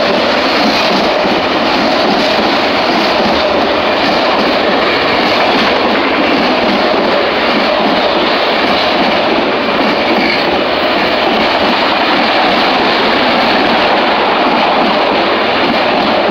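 Freight train of autorack cars rolling past close by: a steady, loud noise of steel wheels running on the rails, without let-up.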